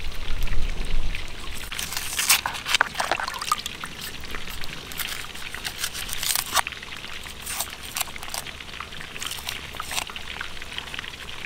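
Knife peeling the dry, papery skin off a red onion: irregular crisp crackles and scrapes, with water trickling and dripping into a basin below.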